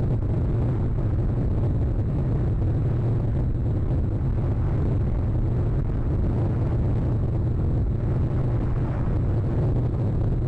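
Strong wind of a storm blowing over the nest camera's microphone: a steady, low, rushing rumble with no breaks.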